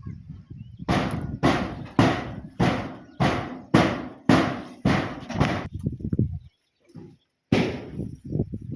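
A run of about nine sharp thuds, roughly two a second, then a pause and one more thud near the end.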